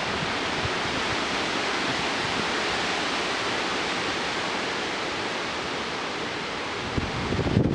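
Severe thunderstorm's steady rushing hiss, even and unbroken, without the gusty rumble of wind on the microphone.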